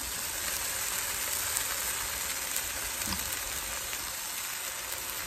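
Pot roast searing in an Instant electric enameled cast-iron Dutch oven: a steady sizzle as the meat browns.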